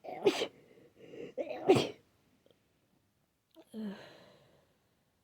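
Two wet sneezes from a person with a heavy head cold, one right at the start and a louder one about a second and a half later after a hitching inhale. A short, weaker breathy vocal sound with a falling pitch follows about four seconds in.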